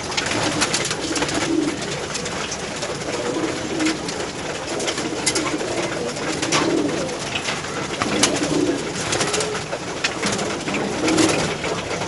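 Pigeons cooing over a steady patter of sharp clicks from beaks pecking at a feeder trough.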